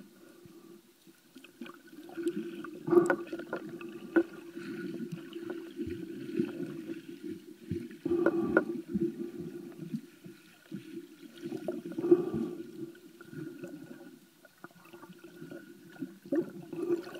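Muffled water sounds heard from a camera held underwater: irregular gurgling and sloshing that swell every few seconds, with a few sharp clicks.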